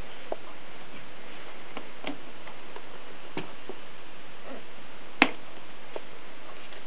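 Scattered, irregular mechanical clicks from a 1951 Express portable typewriter with a Bakelite body being worked, with one sharp, louder click about five seconds in, over a steady hiss.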